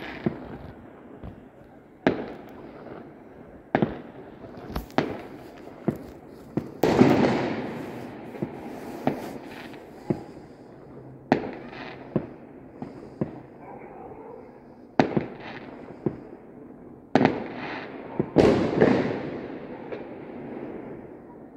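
Fireworks and firecrackers going off: a string of sharp bangs every second or so, each dying away with an echo. Two louder, longer bursts come about seven and eighteen seconds in.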